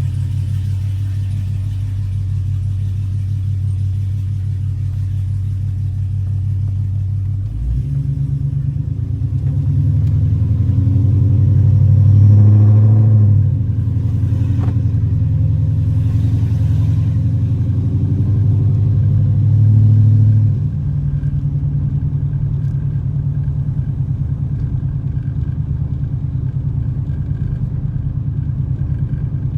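Car engine and road drone heard from inside the cabin while driving. The low drone swells as the car speeds up from about ten seconds in, drops at about thirteen seconds, and swells briefly again around twenty seconds.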